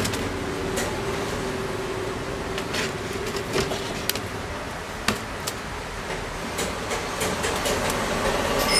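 Scattered light clicks and taps of hands handling a laptop keyboard against its plastic top case, over a steady background hum.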